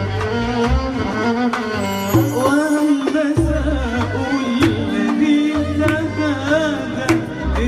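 Live Middle Eastern music with violin and deep bass notes; a woman starts singing into a microphone about two seconds in.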